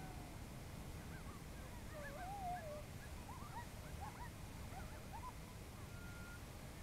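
A pack of coyotes calling faintly: a chorus of many short rising-and-falling yips with one longer wavering howl about two seconds in. The yipping dies away about five seconds in.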